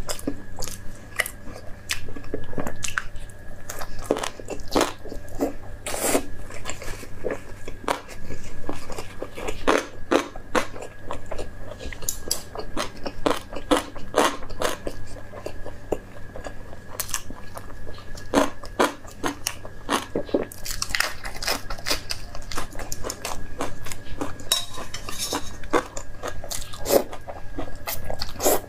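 Close-miked eating: crunchy bites and chewing of crisp fried food and lettuce, many short crackling crunches, with longer slurps of noodles in the later part.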